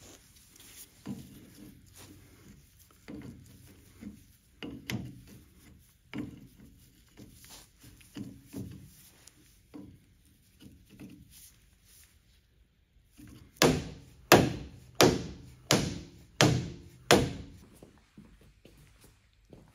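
Light clicks and knocks of an adjustable wrench tightening a brass fitting on the end of a car lift's hydraulic cylinder, followed about two-thirds of the way in by six loud, evenly spaced thuds.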